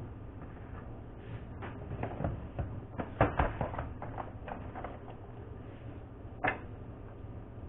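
A run of light knocks and clicks from objects being handled on a work surface, busiest about three seconds in, with one sharper knock near the end, over a steady low hum.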